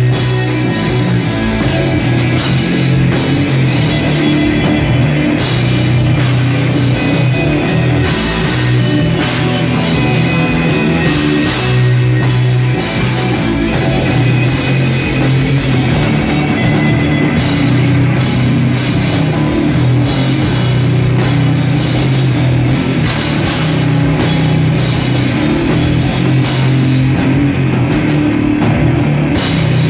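Rock band playing loud and heavy live, drum kit and guitar throughout.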